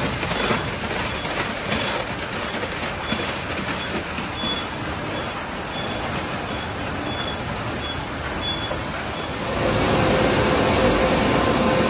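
An automatic tunnel car wash running: foam wrap brushes spin and slap against a car under spraying water, with a faint high beep repeating in the middle stretch. About ten seconds in it gets louder, with a steady hum, as the car passes under the hanging cloth curtain.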